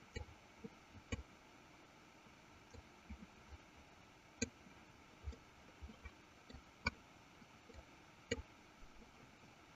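Computer mouse clicking: scattered single clicks at irregular intervals, over a faint steady hiss.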